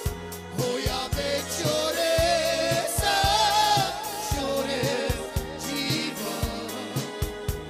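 A Romani (Gypsy) song: a singing voice over a steady drum beat and bass, holding long, wavering notes in the middle.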